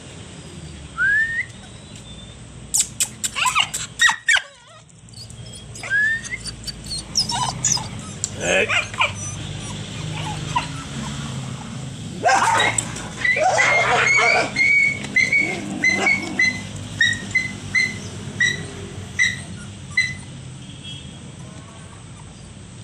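Aspin puppy with an injured leg whining in short rising cries, then giving a run of short yelps, about two a second, that fade away over several seconds. A few sharp knocks sound a few seconds in.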